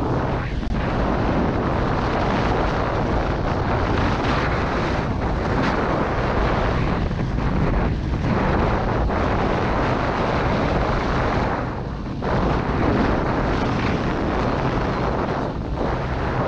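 Wind rushing over a GoPro action camera's microphone at riding speed, with the snowboard's base and edges hissing and scraping over the snow. The rush is steady and loud, easing briefly a few times as the board turns.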